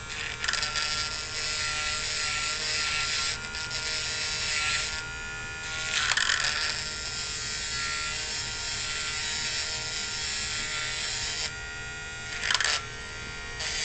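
Dremel rotary tool running with a steady high whine, its bit grinding on and off against the flattened tip of a copper wire to even out and round off the edges; the grinding swells loudest about halfway through and again near the end.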